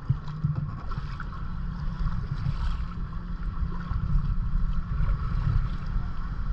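Wind buffeting the microphone in an uneven low rumble, over faint water sounds around a kayak.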